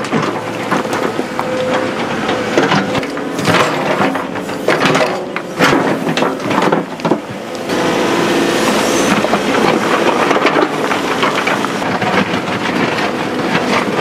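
Excavator at work on rock and soil: a steady engine hum under repeated knocks and scraping of stone, busiest in the first half.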